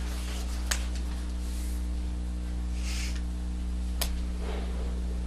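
Steady low electrical hum with evenly spaced overtones, broken by two faint sharp clicks, one under a second in and one about four seconds in, and a short soft hiss around three seconds.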